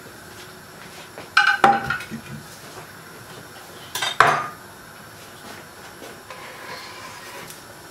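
Metal frying pan with a spatula in it clattering against the gas hob as it is put down, a double clank about a second and a half in and another about 4 seconds in, each with a short metallic ring.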